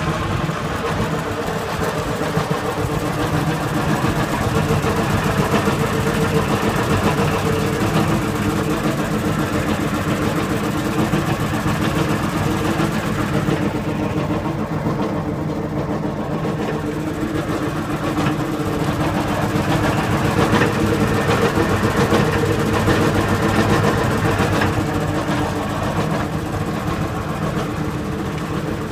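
John Deere 3720 compact tractor's diesel engine running steadily while driving a John Deere Aercore 1500 aerator, whose hollow tines punch into the turf with a rapid, even mechanical clatter as they pull cores.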